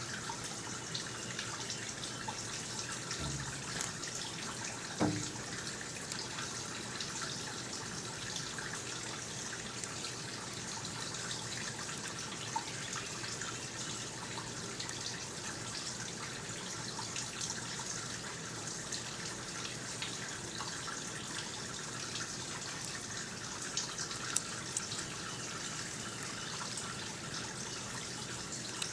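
Steady hiss of running water, with scattered small clicks and drips and a single louder knock about five seconds in.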